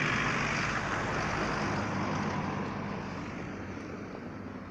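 A road vehicle passing and moving away, its noise fading gradually.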